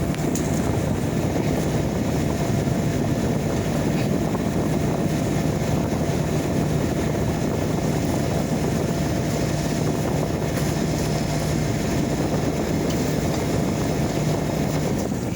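Mitchell automatic dehumidifier running steadily, its compressor and fan motor giving a constant hum. Near the end it is switched off and the sound starts to fall away as the fan spins down.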